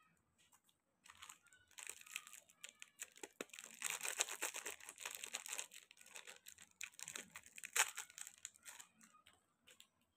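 Shiny plastic wrapper of a chocolate lollipop crinkling and tearing as it is peeled off by hand. The crackling is densest in the middle, with one sharp loud crackle near the end.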